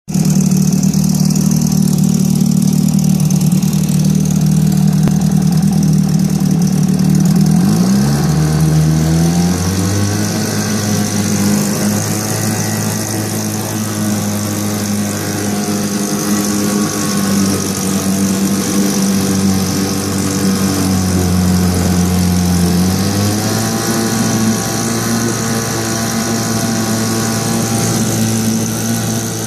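Buccaneer Gale two-stroke outboard motor running in a test tank, its propeller churning the water. The engine speeds up around eight seconds in and rises again near twenty-three seconds.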